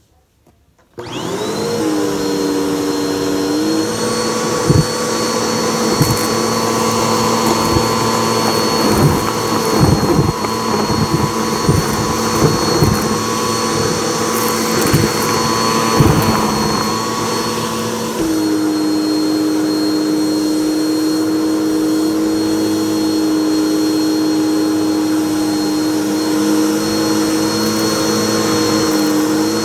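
Bissell upright vacuum switched on about a second in, its motor spinning up to a steady whine. It then sucks up shredded yarn, pom-poms and stuffing through its hose wand, with a crunchy crackle and clatter of debris. About two-thirds of the way through, the crackling stops and the motor's tone shifts and holds steady as debris bunches at the wand's opening.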